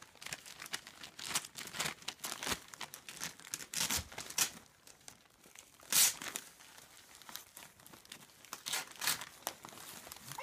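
Gift wrapping paper crinkling and tearing in irregular bursts as a baby pulls at a wrapped present. The loudest rip comes about six seconds in.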